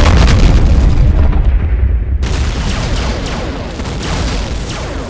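Battle sound effects: rapid gunfire cracks over a heavy, continuous booming rumble of explosions. The sound changes abruptly about two seconds in, going straight into a fresh stretch of the same booms and shots.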